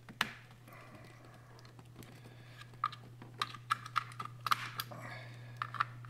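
Plastic wiring-harness connectors clicking and rattling as they are plugged into a power window switch pack: a string of small sharp clicks, sparse at first and coming thicker through the second half.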